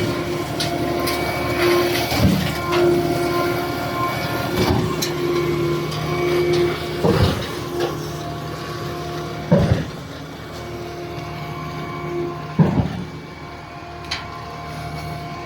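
Concrete pump truck running: a steady machine hum and whine, with a heavy clunk about every two and a half seconds as the pump cycles from stroke to stroke.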